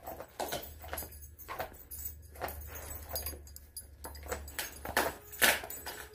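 Lycan Shepherd dogs chewing raw deer legs: irregular crunching and clicking of teeth on bone and hide, loudest about five and a half seconds in. A low hum runs beneath for the first four seconds or so.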